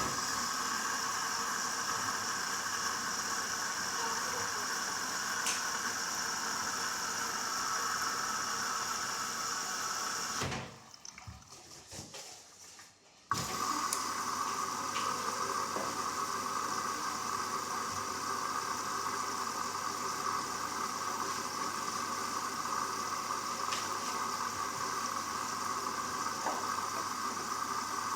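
Hoover Dynamic Next washing machine taking in water at the start of its wash cycle: a steady rush of water that drops away about ten seconds in, then starts again abruptly about three seconds later.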